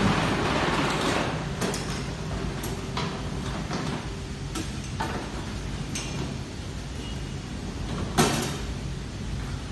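Semi-automatic strapping machine running with a steady low motor hum, with a series of mechanical clacks and one loud sharp clunk about eight seconds in.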